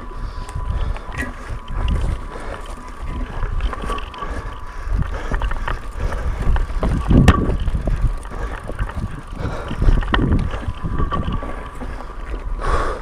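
Mountain bike descending a dirt trail: wind buffeting the microphone and tyres rumbling over the ground, with the bike rattling and knocking over bumps, the sharpest knock about seven seconds in.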